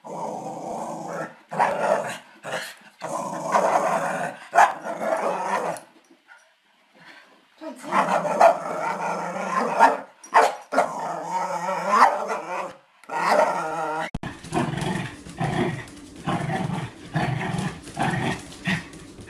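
A small terrier making long, drawn-out growling vocalizations with short pauses between them. About 14 seconds in, another small dog takes over with short, repeated growls.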